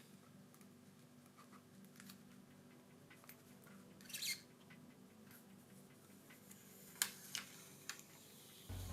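Faint handling sounds of a protective foil being peeled off adhesive on a small phone part: a short rustle about four seconds in and a few light clicks near the end.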